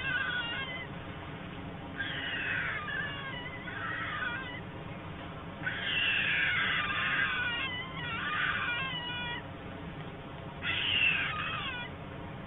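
Young white storks giving mewing begging calls: four bouts of high squeals that fall in pitch, each lasting a second or two, a few seconds apart.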